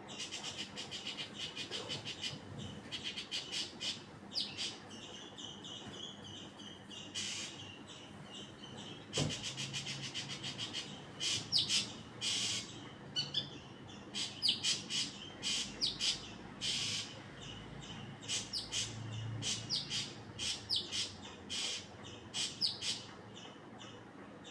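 A small bird chirping: quick runs of short, high-pitched chirps and squeaks, several a second, some of them sliding downward, with a short break partway through.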